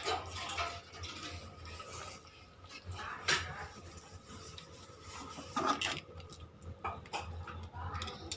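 Metal spoon scraping and stirring semiya in a kadai, with a few short clinks against the pan, over a low steady hum.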